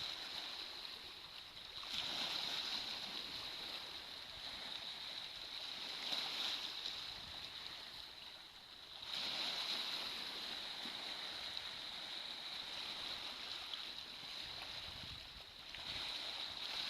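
Waves washing in on the shore, the rush swelling and fading every few seconds, with a steady high-pitched tone underneath.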